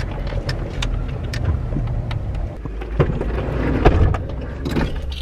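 Car cabin rumble from the engine and tyres while driving, with scattered light clicks and two louder knocks about three and four seconds in.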